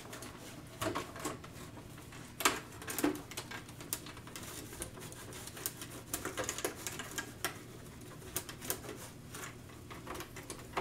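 A microfiber cloth wiping a detail spray coat onto the hard polycarbonate body of a Redcat Gen8 RC crawler, with irregular light clicks, taps and rubbing as the truck is handled and turned.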